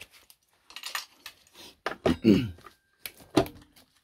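Small metal clinks and knocks of bolts and tools being handled against a scooter's transmission cover as it is fitted, with one sharper knock near the end.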